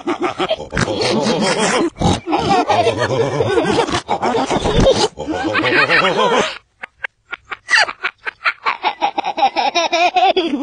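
Peppa Pig cartoon voices played backwards, turned into garbled speech-like babble. A little past the middle there is a short run of sharp clicks with brief silent gaps, then the reversed voices resume.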